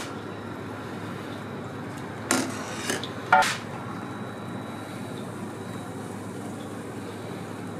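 Kitchen utensils at a crepe griddle clanking twice, about two and a half and three and a half seconds in, the second louder and briefly ringing, over a steady background hum.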